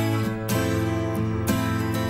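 Background music: strummed acoustic guitar chords, with a new strum about every second.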